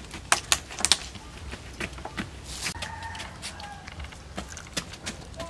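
An empty plastic water bottle clicking and crackling as a baby monkey grabs and pushes it across a foam play mat. A quick cluster of sharp clicks comes in the first second, then scattered lighter taps. A faint thin squeak sounds about three seconds in.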